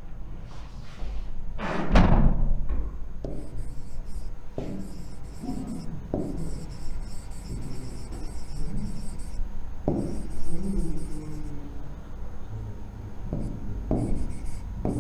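Stylus or pen strokes scratching and tapping on a digital writing board as words are handwritten, with a heavy thump about two seconds in.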